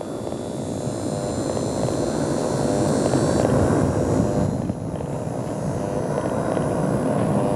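Military turboprop aircraft flying overhead: a steady drone of engines and propellers, with a thin high whine above it that drops out about three and a half seconds in.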